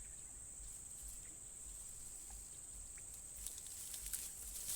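Insects, such as crickets or cicadas, chirring in one steady high-pitched drone, with a few sharp clicks and rustles in the last second or so.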